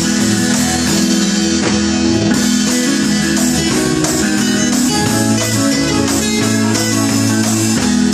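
Live band playing a song, with acoustic guitar, bass guitar, drum kit and keyboard.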